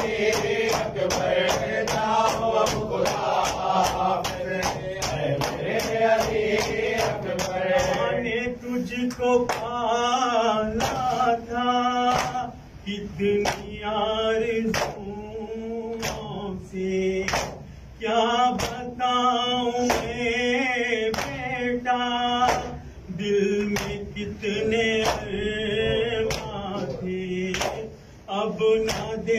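A male voice reciting an Urdu noha (Muharram lament), with a group of men chanting along. Under it runs a steady rhythm of sharp slaps from hands beating on chests (matam), quicker in the first few seconds.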